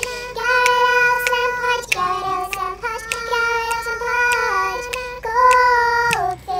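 A child singing a made-up song in long held notes without clear words, each phrase sliding down in pitch at its end, with a few sharp clicks between notes.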